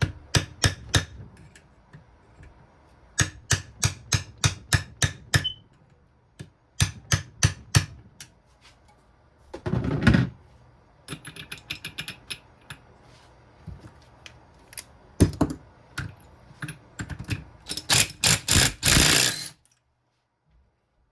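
Hammer tapping on a flathead screwdriver in quick runs of sharp metal strikes, bending down the lock-washer tab on the clutch nut of a Honda CRF150R engine so the nut can come off. Two longer, noisier sounds come in the middle and just before the end.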